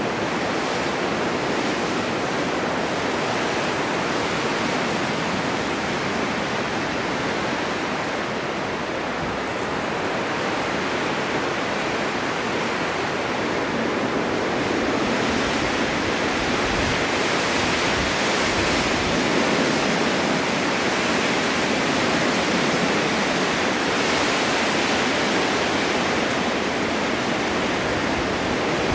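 Snowstorm wind blowing steadily, an even rushing noise that swells a little and grows brighter about halfway through.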